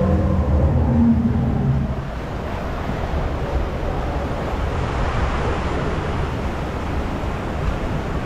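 Steady rushing water and rumble of a round river-rapids raft riding down the water channel, with a low hum in the first couple of seconds.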